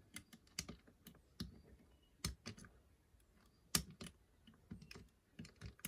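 Lever pick working inside a 5-lever mortice lock: a dozen or so faint, sharp clicks and taps at uneven spacing as the levers are lifted one by one under tension.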